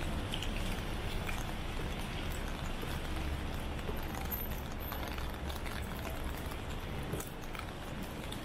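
Rain pattering steadily, with scattered drops tapping close by and a low rumble underneath.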